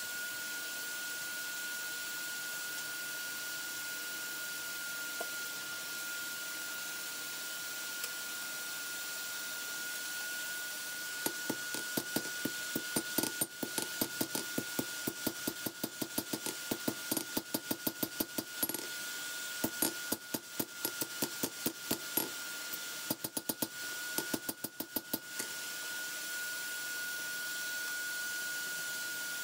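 Hand hammer striking the steel of a lawnmower blade on an anvil while forging it: quick ringing blows, about four a second, in several runs with short pauses, starting about eleven seconds in and stopping about twenty-five seconds in. A steady high-pitched whine runs underneath.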